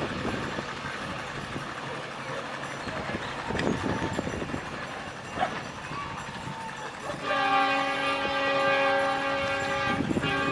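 WDM3D diesel locomotive's air horn sounding one steady blast of about three seconds, starting about seven seconds in.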